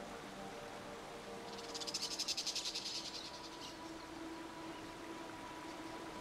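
A high-pitched, rapidly pulsing insect trill that swells and fades away over about two seconds, over a faint steady low drone.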